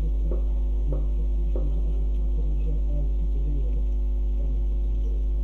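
Steady low electrical mains hum on the microphone line, with three faint clicks in the first second and a half.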